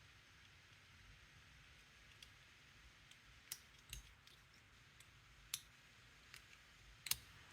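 Faint, scattered metal clicks of a lever pick and tensioner working inside a Walsall 2000 five-lever padlock, about five clicks over several seconds, the sharpest near the end.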